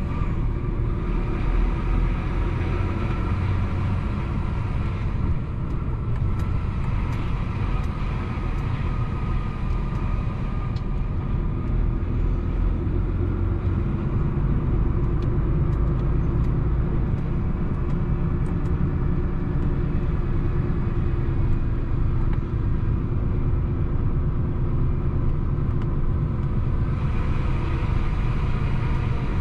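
DAF truck's diesel engine running as the lorry rolls slowly forward, heard from inside the cab as a steady low rumble.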